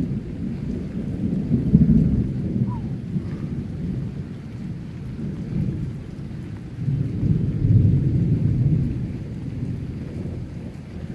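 Thunder rumbling in long, low swells, loudest about two seconds in and again from about seven to nine seconds in.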